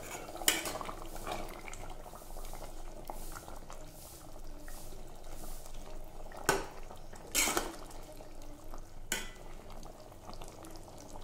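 A metal spoon stirring curry in a cooking pan: soft scraping with a few sharp knocks of the spoon against the pan.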